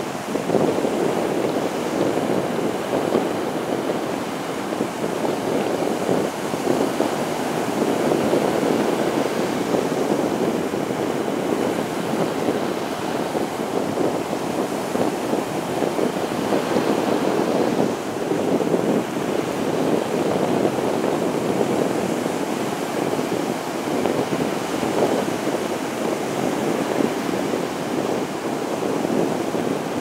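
Small surf waves breaking and washing up on a sandy beach: a steady rush of water.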